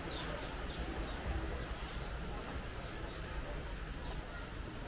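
Birds chirping: short, high chirps, mostly in the first half, over a steady low rumble and faint distant voices.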